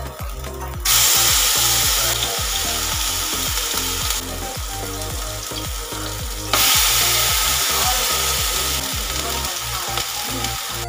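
A frying pan on a gas stove sizzling loudly with hot fat, starting abruptly about a second in and jumping louder again near the middle. Background music with a steady beat plays underneath.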